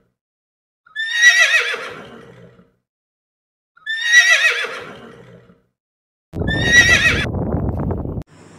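Horse whinnying twice: two identical high, quavering neighs, each falling in pitch and fading, about three seconds apart. Near the end comes a low, rough rumble lasting about two seconds.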